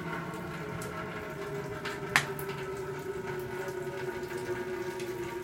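Water running steadily from a hose into a flow-model tank, a continuous wash with a steady hum and small scattered ticks. A single sharp click about two seconds in.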